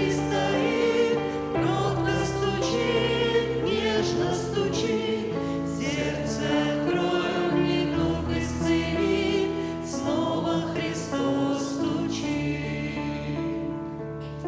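Voices singing a Russian Christian hymn over sustained keyboard chords. The singing ends near the end and the accompaniment's final chord fades.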